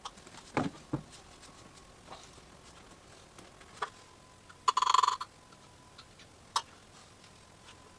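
Scattered light clicks and knocks from handling drain pipe and fittings during the work, with a short harsh scrape about five seconds in. A faint steady tone sits underneath.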